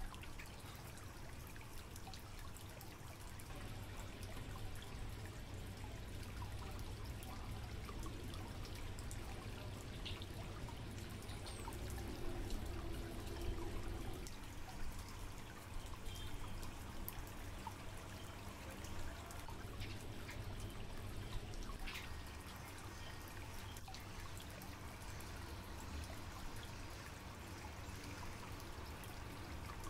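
Aquarium water trickling steadily, as from a tank filter's outflow, over a low steady pump hum.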